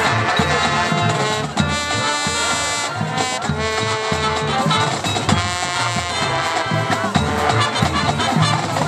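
Marching band brass section playing a sustained chord-rich passage over a steady beat from the drum line.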